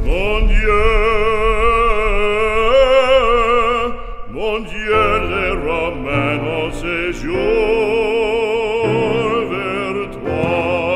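Background music: operatic singing with a wide vibrato over instrumental backing.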